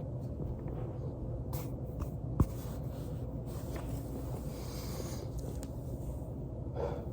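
Soft rubbing and shifting of a body on a foam roller over a steady low hum, with one sharp crack about two and a half seconds in.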